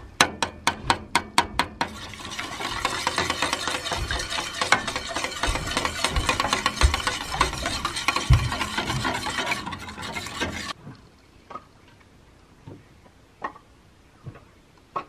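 A spoon beating raw eggs in a stainless steel pot: quick clinks of the spoon against the metal, about five a second, for the first two seconds, then continuous fast stirring and scraping that stops suddenly about ten and a half seconds in. A few faint separate knocks follow.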